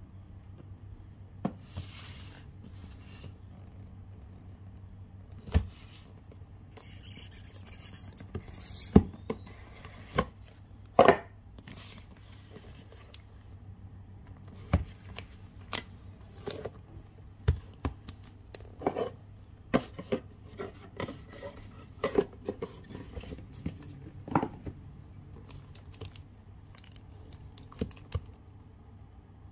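Hands handling a cellophane-wrapped cardboard perfume box: scattered taps, knocks and scrapes as it is moved and turned, with a rustling scrape of about two seconds around a quarter of the way in. A low steady hum runs underneath.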